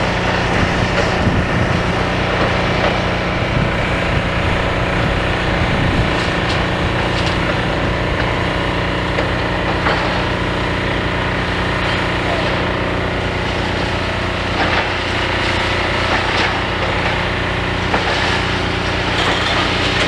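Demolition excavator's diesel engine running steadily while it scrapes and crunches concrete rubble and debris, with scattered sharp knocks and cracks.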